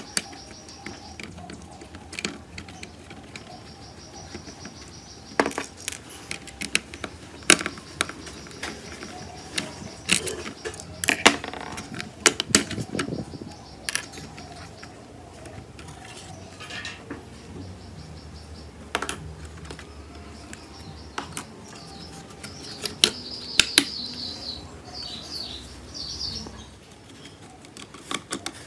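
A small screwdriver backing screws out of a hard plastic toy remote-control car body, with scattered sharp clicks and taps of plastic parts and small metal screws being set down and dropped on a hard tabletop.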